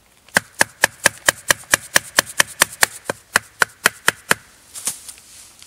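The steel lid of a tin can being punched open with a pointed tool in place of a can opener: a quick, even run of about eighteen sharp metallic taps, about four a second, each with a short ring, then one more tap after a brief pause.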